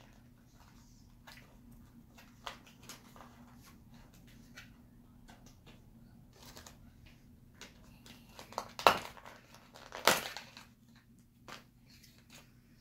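Plastic packaging of an L.O.L. Surprise doll crinkling and rustling as it is unwrapped: scattered small crackles, with two louder crinkling bursts near the end, about a second apart.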